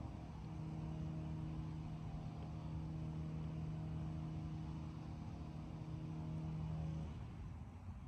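A steady engine hum holding one pitch over a low rumble, stopping near the end.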